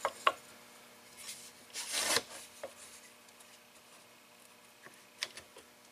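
Quiet handling of plywood parts as a one-handed bar clamp is set on them: a short rub of wood on wood about two seconds in, and a few light clicks and taps.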